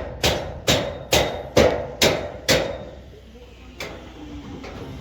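Hammer strikes in a steady rhythm, about two blows a second, six in all, stopping about two and a half seconds in.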